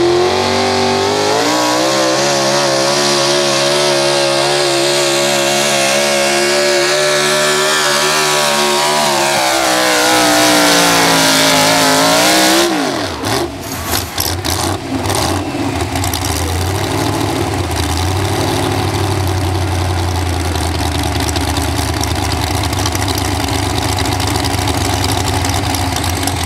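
Chevrolet Pro Stock 4x4 pulling truck's engine at full throttle hauling the sled. It climbs to high revs and holds there, its pitch sagging toward the end of the run, then flares briefly and cuts off sharply about halfway through as the pull ends. Afterwards the engine runs at low revs with a low, rough rumble.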